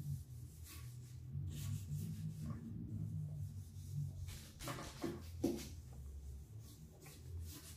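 Wet sponge rubbing and scrubbing against aquarium glass in repeated strokes to clean off limescale, with a couple of short squeaks about five seconds in, over a faint low hum.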